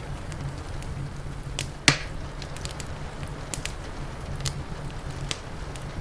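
Wood fire crackling, with frequent sharp pops and snaps and one much louder pop about two seconds in, over a steady low rumble.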